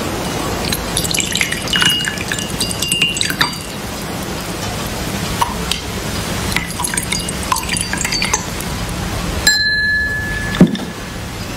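Cups, saucers and spoons of a tea service clinking as tea is served, a run of small clinks over a steady hiss. Near the end one note rings on for about a second, followed by a sharper clink.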